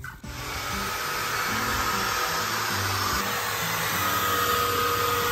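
Bissell Spot Clean Auto-Mate carpet and upholstery cleaner running, its suction motor giving a steady drone with a faint whine as it extracts water from the carpet. Background music with a bass line plays along.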